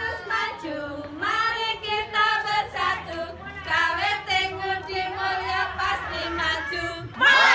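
A group of women's voices singing a song together in unison.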